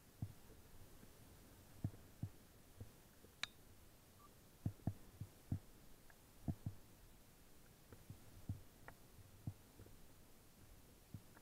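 Fat bike on a snowy trail: faint, irregular low thumps and knocks as the bike jolts, over a low steady hiss, with one sharp click about three and a half seconds in.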